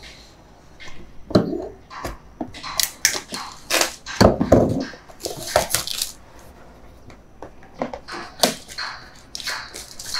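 Unboxing a drone pack: cardboard and plastic packaging rustles, scrapes and knocks as it is pulled open, in irregular clusters that are loudest around the middle, with a dull knock about four seconds in.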